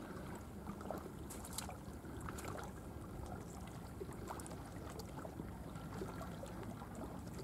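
Faint, steady background noise with scattered small clicks and taps.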